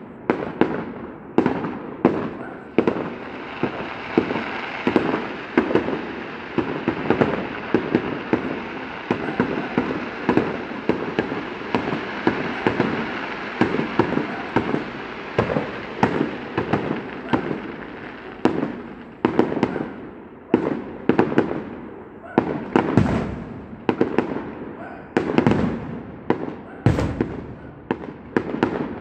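Fireworks display: aerial shells bursting in a rapid string of bangs, several a second, with a dense crackling hiss filling the middle stretch and a few heavier booms near the end.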